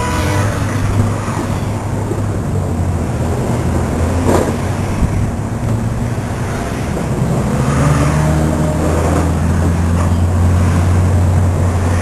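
Car engine running with a steady low drone and a few rising and falling glides in pitch, with a single sharp click about four seconds in.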